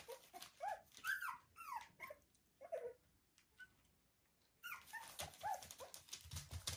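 Cavapoo puppy whimpering: short, high, rising-and-falling whines in two bursts separated by a pause of about a second and a half. Soft scuffling follows near the end.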